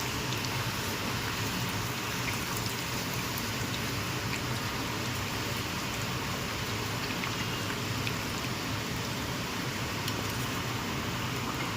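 Hot oil sizzling steadily around breaded chicken pizza pops shallow-frying in a pan, with scattered faint crackles.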